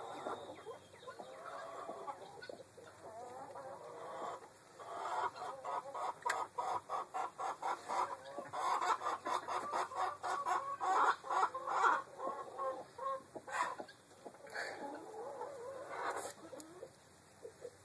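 Black Australorp hen clucking in fast runs of short notes, about six a second, densest through the middle, with a few louder single calls after. This is agitated alarm clucking from an upset hen.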